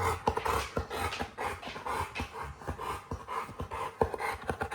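Dogue de Bordeaux panting and licking close up, a quick irregular run of wet lapping clicks.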